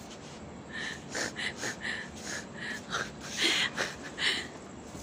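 Puppy whining in a string of short, high whimpers, about a dozen in quick succession, with louder ones a few seconds in.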